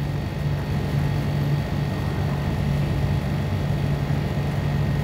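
Steady low mechanical hum under a constant hiss, unchanging throughout.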